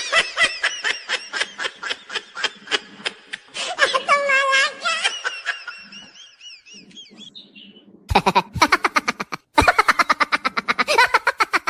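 High-pitched laughing in fast, rapid-fire bursts that trail off about five seconds in, then starts again louder about eight seconds in.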